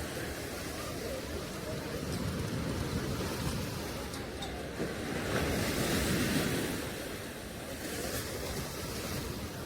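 Ocean surf breaking on a sandy beach, a steady wash of waves that swells louder about halfway through and then eases back.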